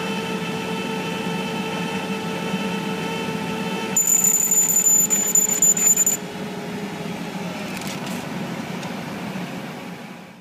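A CO2 laser marking machine running with a steady hum made of several tones. From about four to six seconds a high-pitched whine joins the hum and the level rises and flickers while the laser beam cuts through paper. It then cuts off, leaving a slightly quieter hum.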